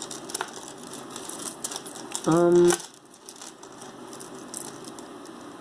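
Small metal jewelry pieces clinking and jingling as they are handled, a scatter of light sharp clicks throughout. About two and a half seconds in comes a short hummed vocal sound, like a thoughtful "hmm".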